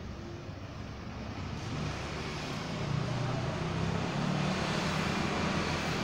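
A motor vehicle's engine and road noise, growing louder from about two seconds in as it passes.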